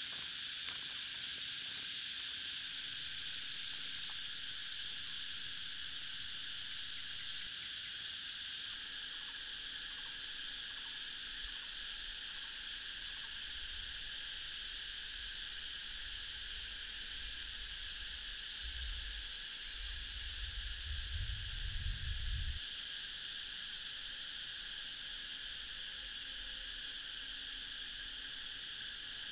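Steady, unbroken chorus of insects, dense and high-pitched. A low rumble comes in about twelve seconds in, grows louder for a few seconds and stops about three-quarters of the way through.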